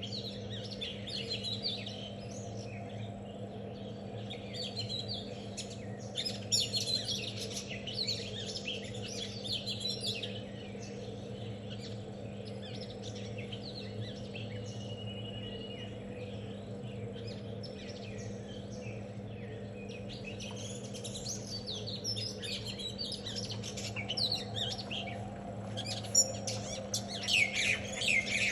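Many small birds chirping and tweeting at once, in dense bursts that thin out for a while in the middle and grow busiest near the end. A steady low hum runs underneath.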